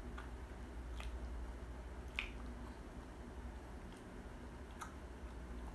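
Mouth sounds of chewing fried chicken: a few short, wet smacks and clicks, the sharpest about two seconds in, over a steady low hum.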